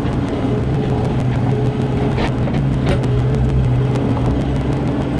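Mini excavator's diesel engine running steadily, with a few short knocks over it.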